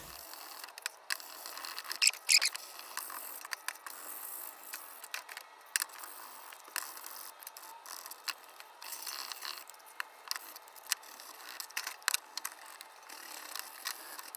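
Parts of a rusty steel folding candle lantern being worked and scrubbed by hand: an irregular run of metal scraping and small clicks, with a few sharper clicks.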